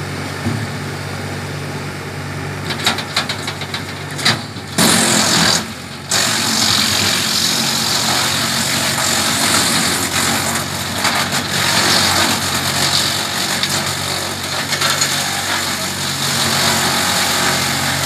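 Tractor-driven Hasatsan DP 700 wood chipper running over the tractor engine's steady drone. After a few sharp cracks, branches go in about five seconds in and it chips them with a loud, continuous grinding crackle that rises and dips as the wood is fed.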